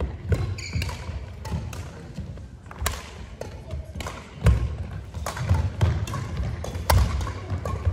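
Badminton rally: sharp racket hits on the shuttlecock at irregular intervals, mixed with thuds of footsteps on a wooden sports-hall floor, echoing in the large hall. The loudest impacts come about four and a half and seven seconds in.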